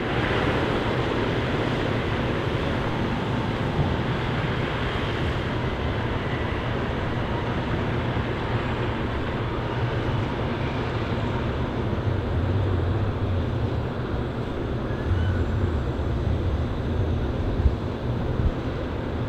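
Volvo FH13 540 wood chip truck's 13-litre straight-six diesel running steadily, with a deep rumble, as the truck drives past pulling its chip trailer.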